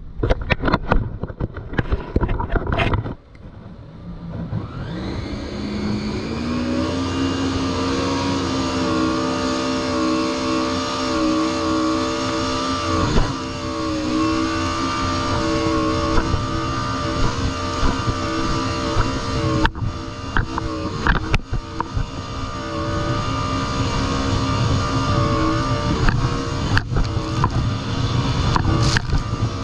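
Jet ski engine picking up speed about four seconds in, its pitch rising, then running steadily at speed. Gusts of wind noise at the start, and sharp knocks now and then as the hull hits the chop.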